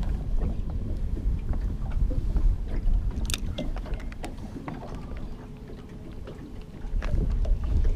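Wind buffeting the microphone over water slapping against a small boat, a low uneven rumble that eases for a few seconds past the middle. Scattered light clicks and knocks from the fishing rod, reel and rope being handled, the sharpest about three seconds in.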